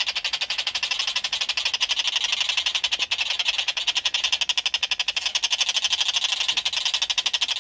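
Juvenile Oriental dollarbird calling without a break: a fast train of pulses, about a dozen a second, the begging call of a hand-raised fledgling asking for food.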